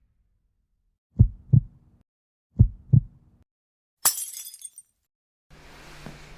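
Heartbeat sound effect: two deep double thumps, lub-dub, about a second and a half apart. Then a single sharp glass-breaking crash with a high ringing tail.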